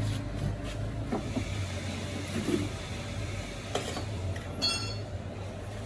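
Steady low mechanical hum with a few short clicks, and a brief metallic ring a little over four and a half seconds in.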